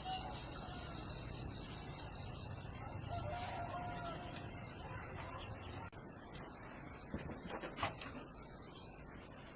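Rooster crowing.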